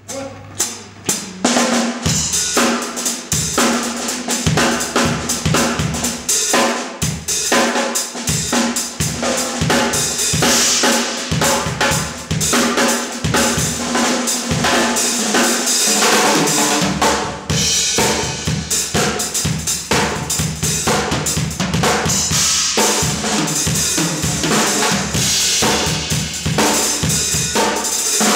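Acoustic drum kit played solo and improvised: quick strokes on snare and bass drum with cymbals ringing over them. It starts with a few sparse hits and becomes dense, continuous playing about two seconds in.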